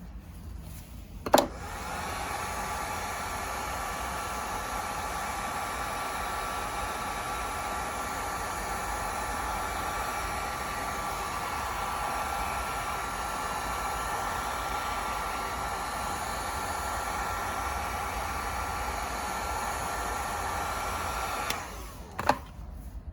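Electric heat gun switched on with a click, running steadily with its fan noise and a faint whine for about twenty seconds, then switched off with another click.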